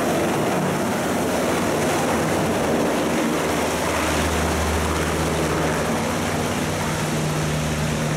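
US Coast Guard MH-60T Jayhawk helicopter's rotors and turbine engines, loud and steady as it lifts off, climbs away and passes overhead; the low rotor beat grows stronger about halfway through.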